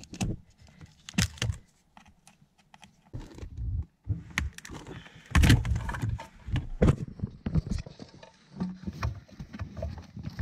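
Lexus LS400 engine wiring loom being handled as its plugs are unplugged: irregular plastic clicks, knocks and rustling of the loom.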